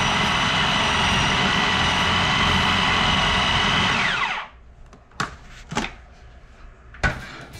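Food processor motor running steadily as it mixes seasoned ground meat, then switched off about four seconds in, its whine falling as the blade winds down. A few sharp plastic clicks follow as the lid is unlocked and lifted, the loudest near the end.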